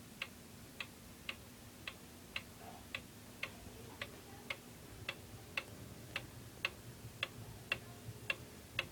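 D&A 31-day wind-up wall clock's pendulum movement ticking steadily at a little under two ticks a second, with sharp, even tick-tocks.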